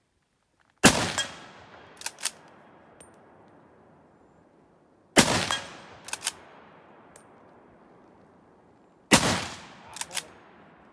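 Swiss K11 rifle in 7.5×55mm Swiss firing three shots about four seconds apart, each sharp report trailing off in an echo. About a second after each shot come two quick clicks as the straight-pull bolt is cycled back and forth.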